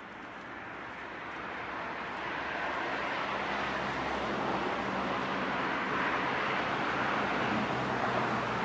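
Steady rush of road traffic noise that swells over the first few seconds and then holds, with a low engine hum underneath.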